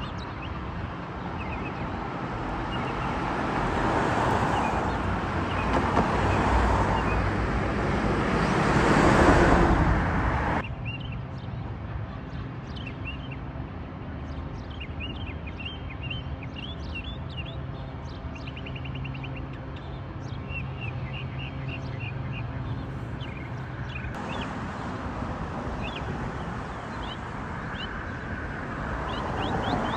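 Small birds chirping over road traffic. A passing car's noise swells and peaks about nine seconds in, and another car approaches near the end. Between them a steady low hum sits under the chirps.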